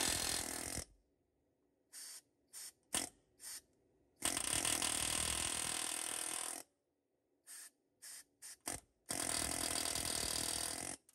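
Pneumatic air hammer hammering on a rivet in a 1964 Ford F100's steel frame, run in bursts: a short run at the start, quick trigger blips, then a run of about two and a half seconds, more blips, and a final run of about two seconds.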